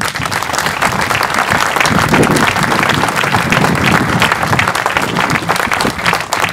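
Crowd applauding, many hands clapping steadily and starting to fade near the end.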